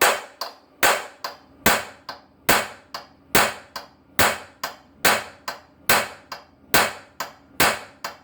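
Hammer striking a punch held on a seized cylinder-head bolt, in steady sharp metallic blows a little over one a second, each followed by a lighter tap. The shocks are meant to break the bolt loose while torque is held on it.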